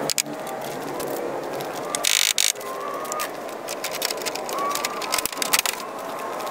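Busy workshop sounds during car body work: rapid clicks and rattles with short chirping tones, and a brief loud hiss about two seconds in.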